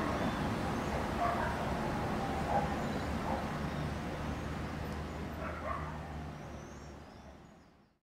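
A dog barking a few times in short bursts over steady background ambience. The whole sound fades out over the last couple of seconds.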